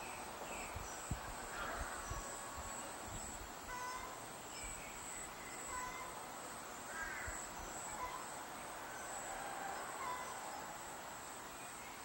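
Wild songbirds calling with scattered short whistled notes and chirps, some sliding in pitch, over a steady high-pitched insect drone.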